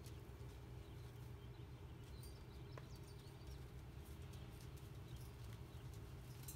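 Several horses, a Belgian draft mare and her half-draft foal among them, walking on sand: faint, soft hoof falls over a low steady rumble.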